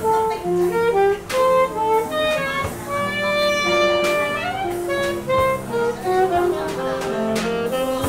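Live jazz band: saxophone playing a melodic line of changing notes over archtop guitar and rhythm accompaniment.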